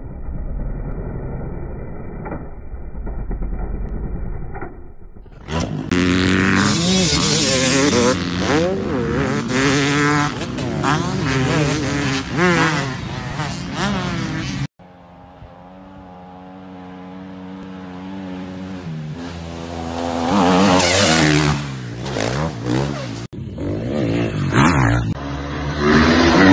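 Dirt bike engines revving up and down over several short clips, the pitch rising and falling as the bikes accelerate and jump. The sound changes abruptly about 5, 15 and 23 seconds in.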